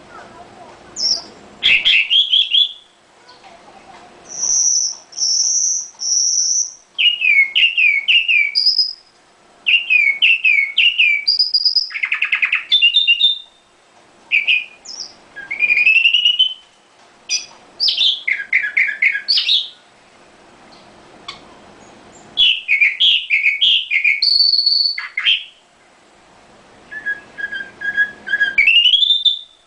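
Nightingale singing in separate varied phrases with short pauses between them: three long high whistled notes about five seconds in, runs of fast repeated falling notes, and a dense rapid rattle near twelve seconds.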